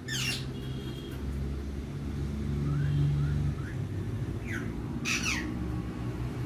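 A parrot squawks twice, short falling screeches right at the start and about five seconds in, with a few faint chirps between. A steady low rumble of the car runs underneath.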